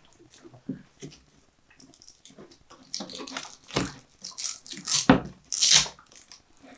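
Double-sided hook-and-loop strap being pulled tight and wrapped around a chainsaw's grip: a few light clicks, then several short rasping rips, loudest about five to six seconds in.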